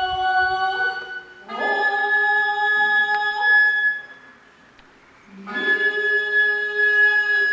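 Japanese gagaku ceremonial music: long held, organ-like chords with wind notes that slide upward into pitch at the start of each phrase. There is a short pause about four seconds in, then a new phrase begins.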